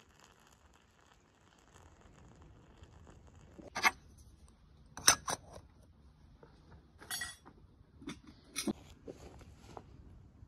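Hot water pouring in a thin stream into a glass teapot, then a series of short glass clinks and knocks as the teapot's glass lid and the teapot itself are handled and set down, the loudest about five seconds in.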